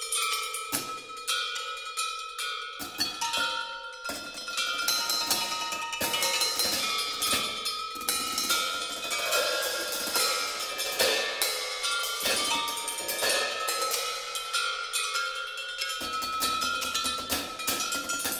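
Percussion quartet playing a dense, fast stream of metallic strikes on cymbals and tuned metal bars, with a few ringing pitches held underneath.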